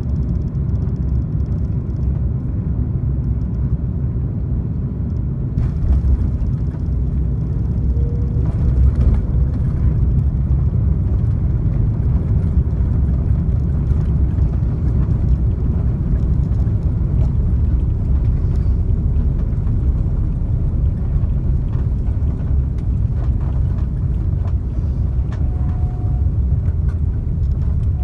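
Cabin rumble of an Airbus A330-200 landing and rolling out on the runway: steady low noise from the engines and landing gear. There is a short jolt about six seconds in, and the rumble grows louder about nine seconds in as the aircraft brakes with its ground spoilers raised.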